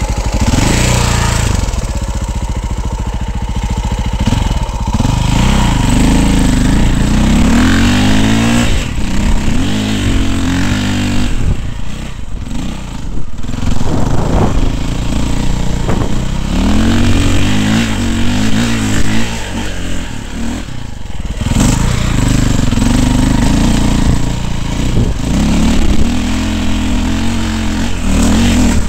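Dirt bike engine revving up and down repeatedly as the throttle is worked over rough ground, its pitch climbing and falling with short let-offs about twelve and twenty-one seconds in.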